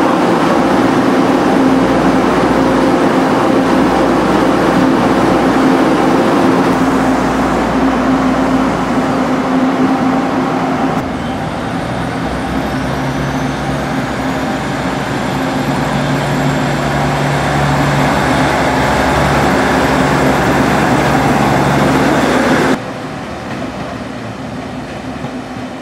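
Taiwan Railway DR1000-series diesel railcar's engine running at the platform: a steady, loud drone with a low hum. Past the middle a deeper, stronger note joins for several seconds, and near the end the sound drops suddenly to a quieter, more distant running.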